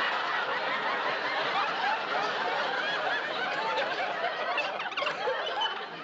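Sitcom studio audience laughing, a long sustained laugh from many people that eases a little near the end.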